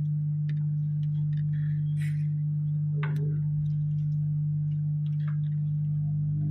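Steady low hum of a hot air rework station left running on the bench, with a few faint taps and rustles from handling tools.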